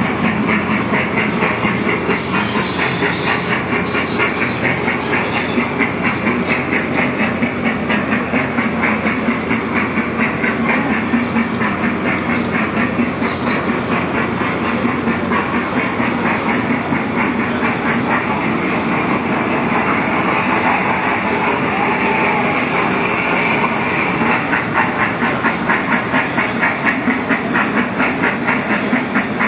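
Thomas the Tank Engine children's ride train running on its track, with a fast, even rhythmic clatter.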